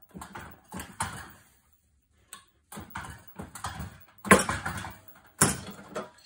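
Irregular metal clanks and knocks from stainless steel threaded pipe fittings being wrenched tighter, the loudest two a little over four and five seconds in.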